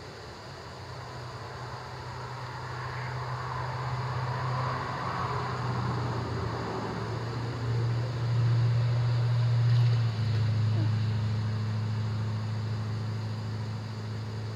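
Road vehicle passing on a highway: a low engine drone with tyre noise that builds over several seconds, is loudest about ten seconds in and drops slightly in pitch as it goes by, then starts to fade.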